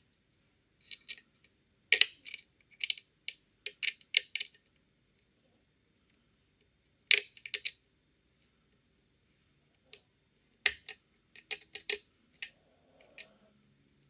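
Metal clicks and taps from a pick working the levers of a five-lever Fichet cabinet lock while it is being picked. The clicks come in scattered clusters with short pauses between.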